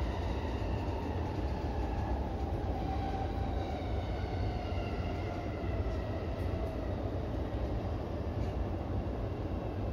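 An E233-series electric train moving off along a station platform, heard from the driver's cab: the traction motors whine in several tones that slide slowly downward over a steady low rumble from the running gear.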